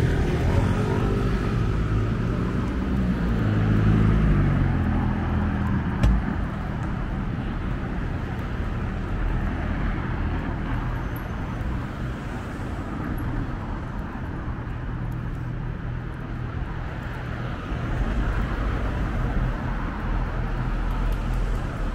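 City street traffic: a vehicle passes near the start, with its engine pitch gliding, then a steady low rumble of road traffic. A single sharp knock comes about six seconds in.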